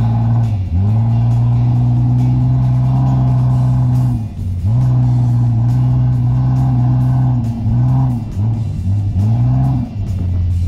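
Off-road 4x4's engine driving through dune sand, holding a steady note that briefly drops and climbs back as the throttle is lifted and reapplied, several times in quick succession near the end.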